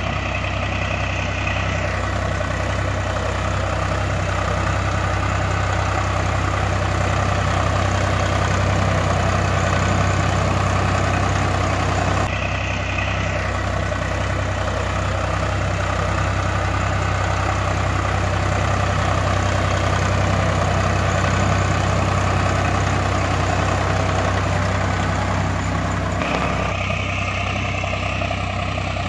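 Diesel tractor engine idling steadily with a low, rhythmic throb. Its sound changes abruptly about 2 seconds in, again about 12 seconds in, and near the end.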